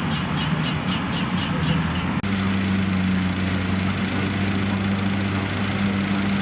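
Combine harvester's diesel engine running steadily in the field. The sound breaks off sharply about two seconds in and resumes as a steadier engine drone with a strong low hum.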